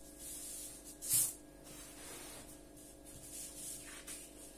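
A sheet of watercolour paper being slid and repositioned across a tabletop by hand: soft rubbing and hissing, with one louder brief swish about a second in.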